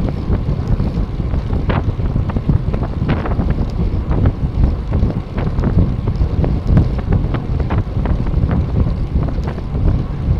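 Heavy wind buffeting on a bike-mounted camera's microphone as road bicycles ride at speed, with scattered sharp clicks and rattles over the road.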